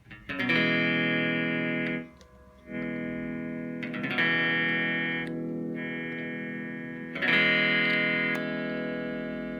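Electric guitar played through distortion: a few chords struck and left to ring out, with a brief stop about two seconds in.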